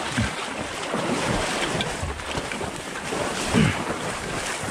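Someone wading through a flooded tule marsh: dry reeds swish and rustle against clothing and gun while water sloshes around the legs, a steady noisy rustle.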